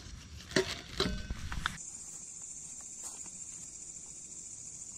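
A few sharp knocks and clatter in the first two seconds, then a steady, high-pitched chirring of night insects.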